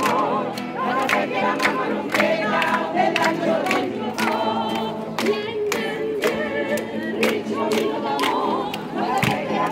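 Group of women singing a folk song in chorus to an acoustic guitar, with hand-clapping keeping time at about two claps a second.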